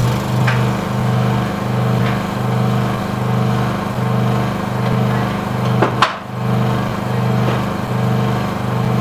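Machine motor running with a steady low hum that swells and dips about three times every two seconds, with a short knock about six seconds in.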